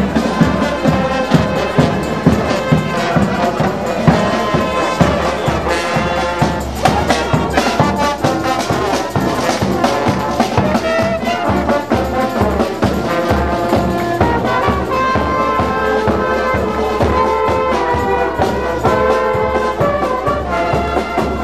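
Marching brass band playing as it passes, trombones, tubas and trumpets over a bass drum beating time.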